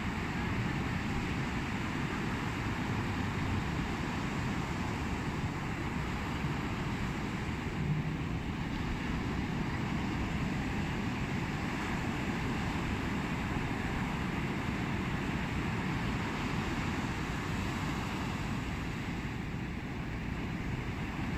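Steady rush of sea wind and waves, heaviest in the low end, with no distinct breaks or surges.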